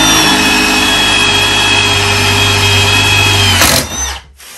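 Cordless impact driver drilling a 7 mm hole in iron with a Milwaukee Shockwave Impact Duty titanium bit: a loud, steady high whine under load. The whine dips slightly and cuts off suddenly at about three and a half seconds as the hole is finished.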